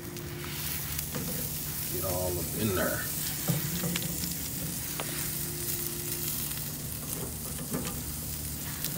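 Butter-coated crab legs sizzling on a grill over hot coals: a steady hiss with a few small pops as the melting butter cooks.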